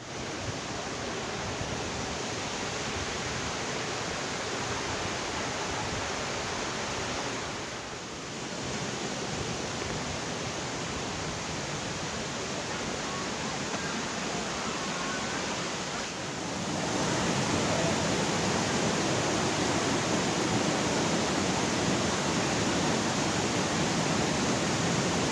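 Waterfall's falling water making a steady, even rushing roar, which steps up louder about two-thirds of the way through.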